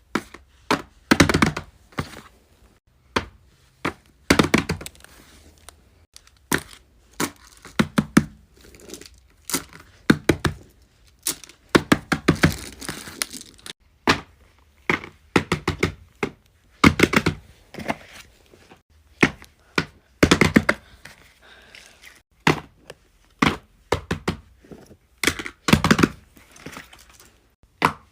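Fidget toys being handled: irregular knocks, taps and thunks of small toys picked up and set down, some in quick clusters, with a few longer scraping or crinkling stretches.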